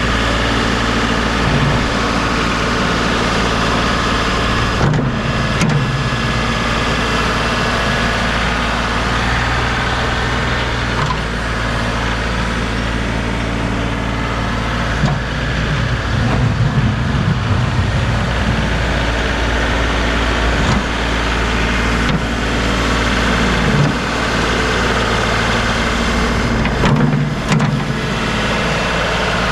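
Tractor engine running steadily, with a few brief louder knocks along the way.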